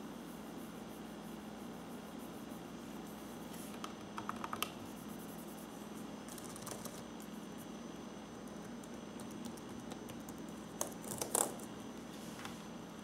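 Keys on an HP dv6z-7000 laptop keyboard being pressed: a short run of clicks a few seconds in, and another near the end, over a steady low hum.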